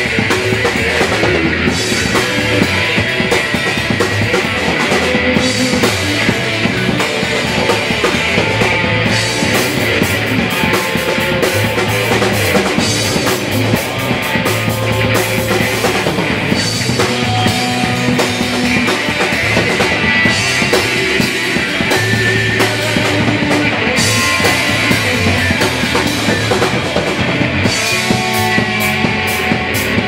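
Live rock band playing loud: electric guitars with a pounding drum kit.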